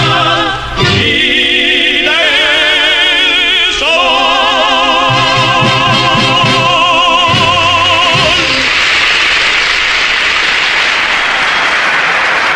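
Male baritone voice singing long held notes with a wide vibrato over musical accompaniment. The last note ends about eight seconds in, and an audience applauds.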